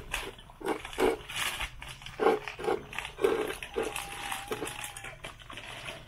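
Hungry puppies yelping in a string of short cries, with one longer, steadier whine a little past the middle, over the crinkle of a plastic pet-food pouch being opened.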